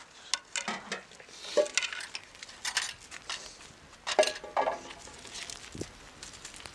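Metal cookware and utensils clinking and clattering in a few short, irregular bursts, loudest about one and a half seconds in and again about four seconds in.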